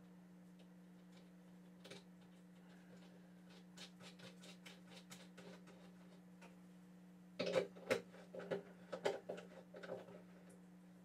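Hands working inside a wooden cajon while fitting a pickup's jack hardware: scattered small clicks and light knocks, then a quick cluster of louder clicks and knocks about seven seconds in. A steady low hum runs underneath.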